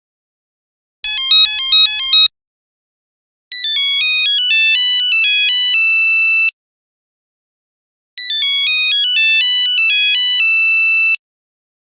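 Electronic phone ringtones. First a short burst of rapidly alternating beeping tones, then a melodic ringtone of quick stepped notes ending on a held note, which plays twice with about two seconds of silence between.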